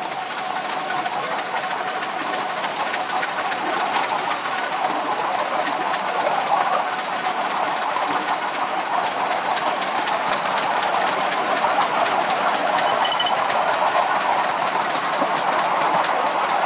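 7¼-inch gauge miniature steam train on the move: its wheels run on the rails and the locomotive's steam hisses steadily, getting slightly louder.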